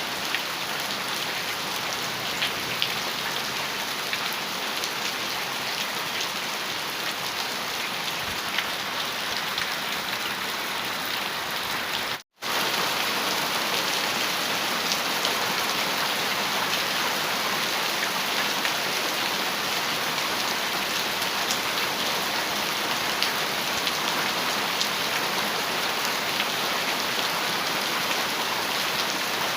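Heavy rain falling steadily on a metal roof, with individual drops ticking through the steady hiss. The sound cuts out for a split second about twelve seconds in, then resumes at the same level.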